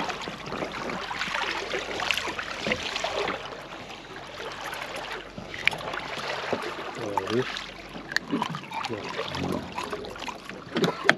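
Water lapping and trickling at the side of a small boat, with scattered sharp clicks and knocks of handling at the rail.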